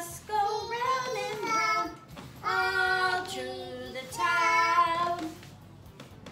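A young child singing in three drawn-out, high-pitched phrases with short pauses between them.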